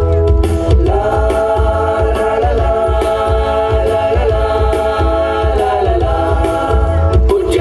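A song playing loudly: long, held sung notes sliding between pitches over a steady drum beat.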